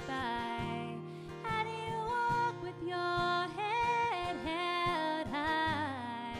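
A woman singing long held notes that bend and waver, over a strummed acoustic guitar: a live acoustic duo performance.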